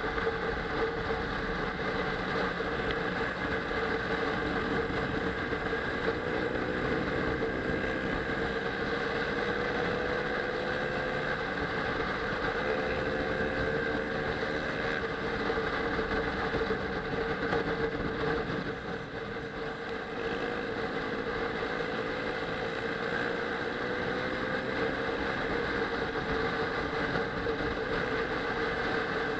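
Kawasaki ER-6n's parallel-twin engine running at steady riding revs, its pitch rising and falling gently with the throttle through the bends, with a brief easing off about two-thirds of the way in. Heard from a helmet camera, mixed with wind rush.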